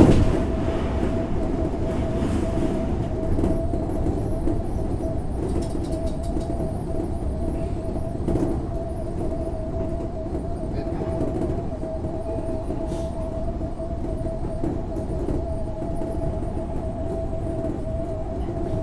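Odakyu 8000 series electric train running at a steady pace, heard from inside the leading car: continuous running rumble with a constant whine above it. There is a sharp knock right at the start.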